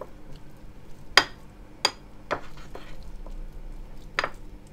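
A utensil stirring thick batter in a bowl and knocking against its side four times. The first two knocks are the loudest and ring briefly.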